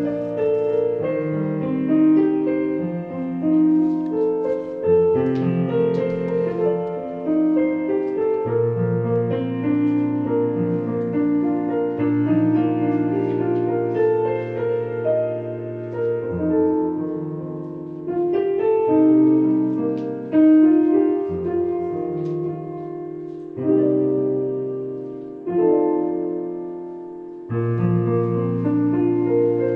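Solo piano music: a slow melody over held chords, with a few short breaks between phrases near the end.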